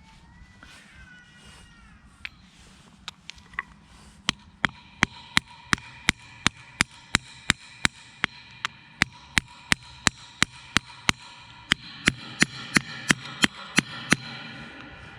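Hammer striking metal in a steady rhythm of about three blows a second, each blow ringing briefly, starting a few seconds in. The blows grow louder in the last few seconds.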